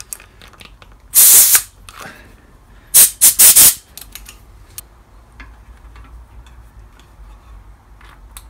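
Compressed air hissing from an air-line tyre inflator and its quick-release hose coupling as they are connected: one loud blast about a second in, then three or four quick short blasts about three seconds in. Light clicks of the fittings are heard between them.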